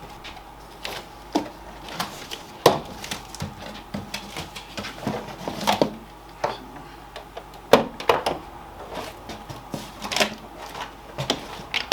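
Hard plastic of a gaming steering wheel set being handled and moved about on a work surface, giving irregular knocks and clicks, the loudest a little past the middle.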